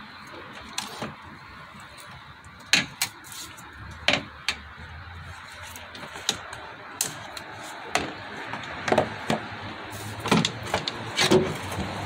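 Irregular sharp metal clicks and clinks, about a dozen, from a hand tool loosening and removing the screws of a windshield wiper motor, over a steady background hiss.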